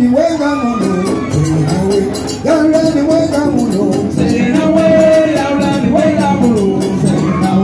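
Live Afro-Cuban band: conga drums and a drum kit keep a steady rhythm under chanted group singing.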